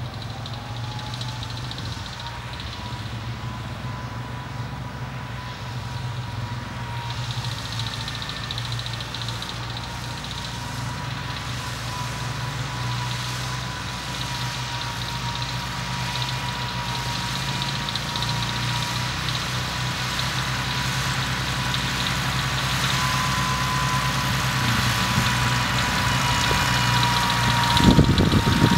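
Farmall Cub's small four-cylinder engine running steadily under load while pulling a plow, growing louder as the tractor comes closer, with a steady high whine alongside. A few brief low thumps near the end.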